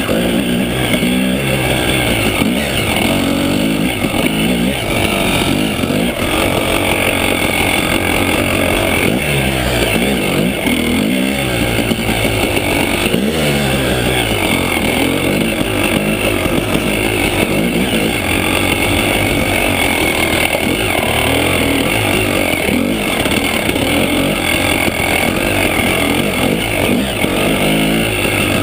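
KTM 300 EXC Sixdays two-stroke enduro engine under way, its revs rising and falling over and over as the throttle is worked.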